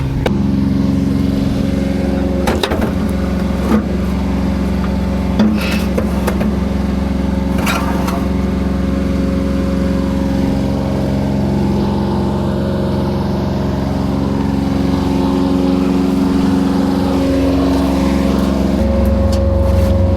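Bobcat L28 compact loader's diesel engine running steadily, with a few sharp metallic clanks in the first eight seconds. The engine note shifts near the end as the revs change.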